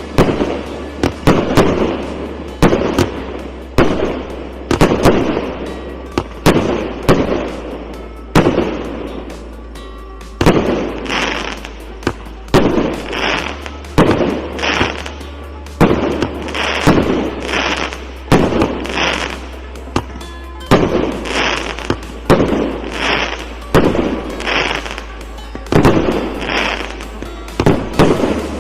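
A 364-shot consumer fireworks cake of 1 to 1.2 inch calibre firing in a steady string of shots, about one or two a second, each launch followed by its aerial burst and crackle.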